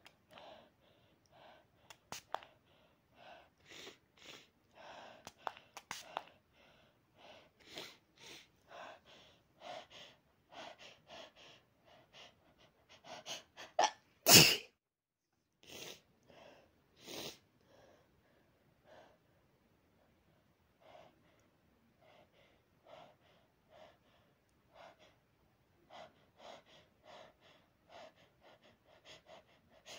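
A person's short, quiet breaths, repeated about once or twice a second, with one loud sneeze about fourteen seconds in.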